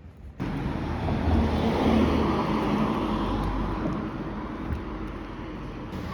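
Road traffic noise with a vehicle going past: it begins suddenly, swells over the next couple of seconds, then eases off to a steady rush.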